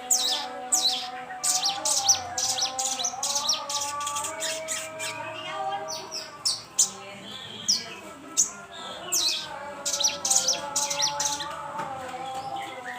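Sogon songbird song used as a lure (pancingan): rapid runs of sharp, high chirps that sweep downward, repeated throughout, over a steadier lower warbling.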